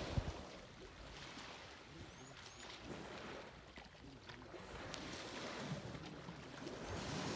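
Wind buffeting the microphone outdoors, a steady rushing noise that rises and falls in gusts.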